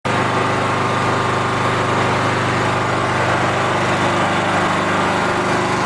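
A small engine running steadily with an even, unchanging hum.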